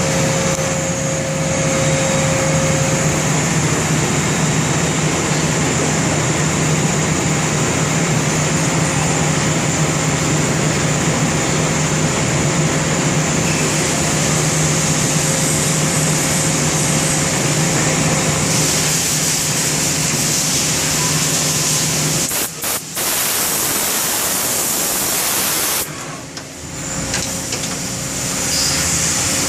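Cincinnati Milacron Avenger 200S CNC lathe running, a steady machine sound with a low hum and a higher whine. About two-thirds of the way through, a hiss grows louder. Near the end the sound cuts out briefly twice before the hum returns.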